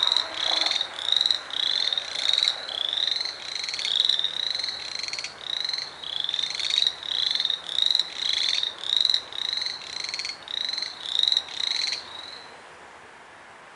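A chorus of frogs calling: many overlapping short, rising, high-pitched calls, about two a second. About twelve seconds in, they all suddenly stop at once, with no noise from anyone nearby.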